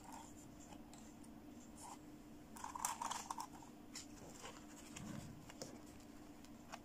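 Quiet handling noises of plastic dolls and toy pieces on a wooden table: light clicks and scratchy rustles, loudest about three seconds in, with a soft low thump near five seconds.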